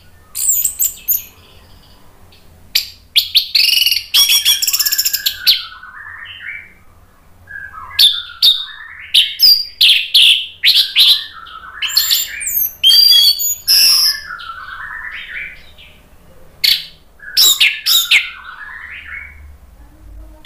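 Orange-headed thrush (anis merah) singing a varied song: loud whistled phrases mixed with fast chattering trills, delivered in bursts with short pauses between them.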